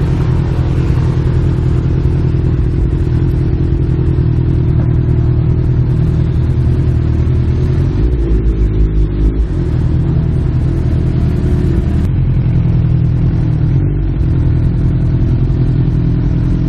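Honda CB1000R's inline-four engine running at low, fairly steady revs as the motorcycle rolls slowly. A heavier low rumble lasts about a second and a half from about eight seconds in.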